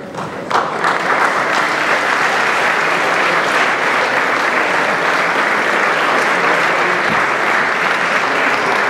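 Audience applauding: many hands clapping, rising to full, steady applause within the first second.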